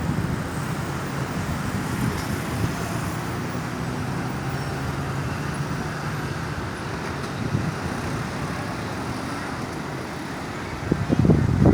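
Road traffic: a steady rumble of vehicle engines and tyres, with an engine hum standing out for a few seconds near the start, and no siren sounding.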